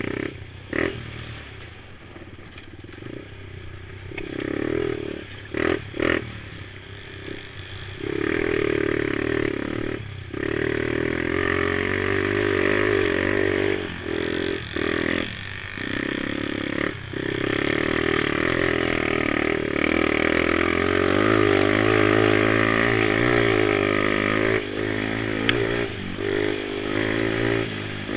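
Youth mini quad engines racing: quieter at first with a few short bangs, then from about eight seconds in a close engine running hard, its pitch rising and falling as the throttle is opened and briefly closed for corners.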